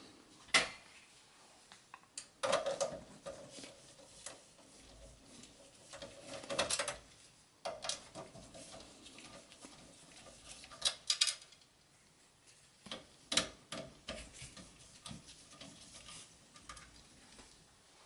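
Screwdriver working the rear screws out of a Dell OptiPlex 7070 small-form-factor steel case: scattered metal clicks, scrapes and small clinks with quiet gaps between, the sharpest click about thirteen seconds in.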